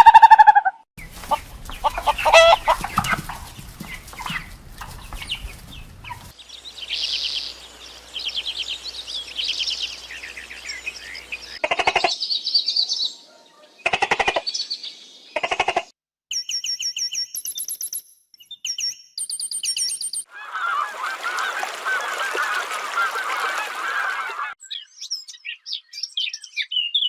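A run of different animal calls one after another, honking goose-like calls and bird calls among them, with a hissing stretch about two-thirds of the way through.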